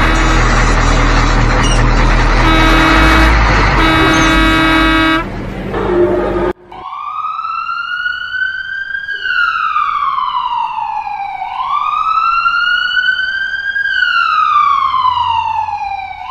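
Road traffic noise with vehicle engines and held tones for about five seconds. Then, after a brief cut, a wailing emergency siren rises and falls slowly, twice.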